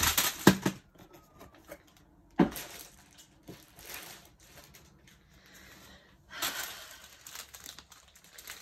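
Diamond painting kit packaging rustling and crinkling as it is handled and unpacked, in several short bouts, with one sharp knock about two and a half seconds in.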